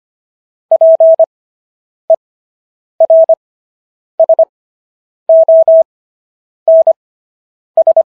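Morse code sent as a steady single-pitched beep tone keyed into short and long elements: the characters are sent at 25 WPM with Farnsworth spacing stretching the gaps between them to an overall 10 WPM, so each letter comes as a quick cluster with a pause of about a second before the next.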